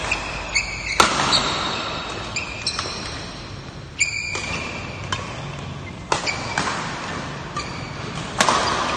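Badminton doubles rally: a shuttlecock is struck by rackets with sharp cracks roughly once a second, and court shoes squeak on the floor in between, echoing in a large hall.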